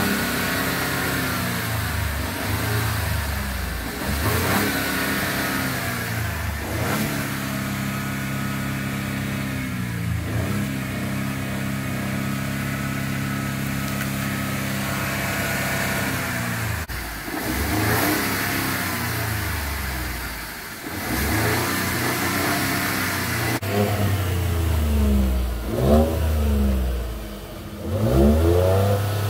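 Ford pickup truck's engine being revved: the revs rise and fall, are held steady at a raised speed for several seconds in the middle, then go up and down in a run of short, quick throttle blips near the end.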